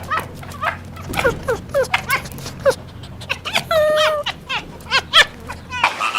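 Dog yelping in a quick run of short, high, rising yips, with one longer whine about midway. Just before the end it cuts to geese honking.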